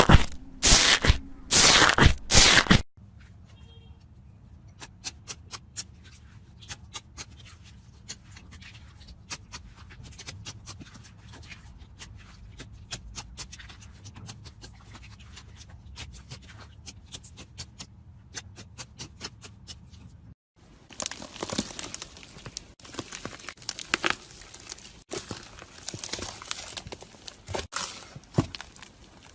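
Slime being squished and stretched by hand: sticky crackling, clicking and popping. A few loud squelches in the first three seconds, then sparse small clicks, and a denser run of crackles over the last third.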